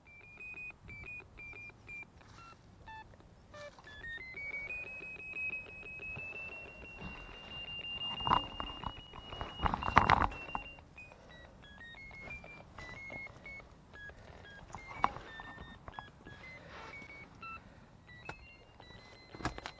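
Ferret finder (collar locator receiver) beeping in quick, evenly spaced electronic pips whose pitch climbs and holds highest around the middle, then drops and wanders: the tone rising as the receiver nears the ferret's collar transmitter underground. A few heavy thumps sound about halfway through.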